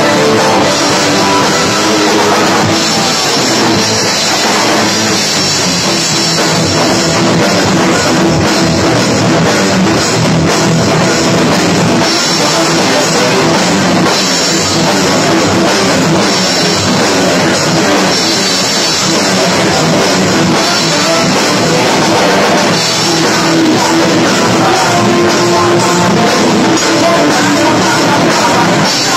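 Rock band playing at a loud, even level: drum kit, electric guitars, bass and keyboard.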